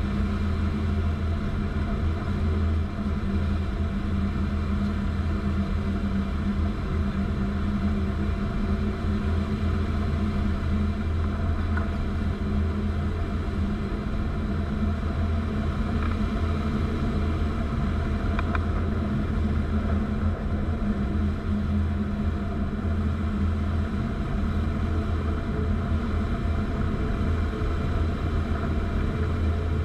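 Steady rush of airflow and low rumble inside the cockpit of a Kitfox light aircraft gliding with its engine shut down and the propeller stopped, as in a practice deadstick landing.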